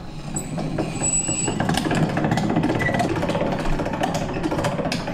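Hand-cranked boat winch being wound, its ratchet clicking rapidly and steadily as it hauls the clothes rack up on a stainless wire through pulleys, with a couple of brief high squeaks.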